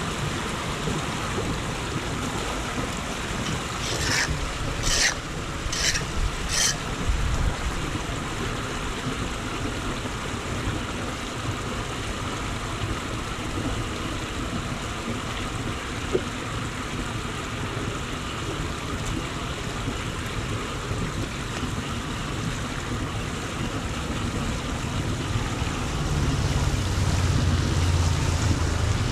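Floodwater flowing steadily into a street drain, with wind on the microphone. Four short, sharp sounds come about four to seven seconds in, and a low hum sets in near the end.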